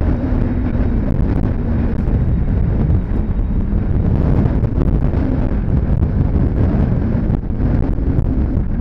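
Jet airliner engines giving a steady low rumble, mixed with wind buffeting the microphone; a faint engine tone sinks slightly in pitch over the first few seconds.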